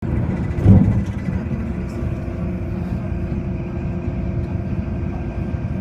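MTR train running, heard from inside the carriage: a steady low rumble with a faint steady whine, and a brief low thump about a second in.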